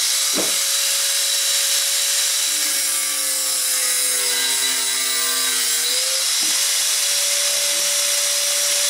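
A power tool running continuously while cutting an LED strip channel to length. Its motor pitch sags a little about three to six seconds in, as if under load, then recovers.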